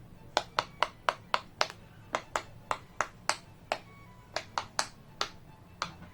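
Silicone pop-it fidget toy bubbles pressed one after another: a quick run of sharp pops, about three a second.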